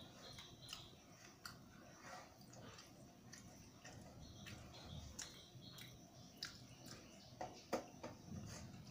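Quiet chewing of rice and dal eaten by hand, with small scattered clicks and scrapes of fingers working the food on a steel plate; one sharper click comes about three quarters of the way through.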